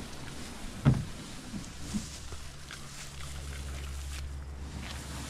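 Plastic kayak dragged through tall grass, rustling and scraping, with a thump about a second in and a few lighter knocks after it. A steady low hum sets in about halfway through.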